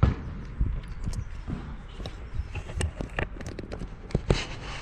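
Irregular sharp clicks and light knocks of small hard objects being handled, over a low rumble of handling noise.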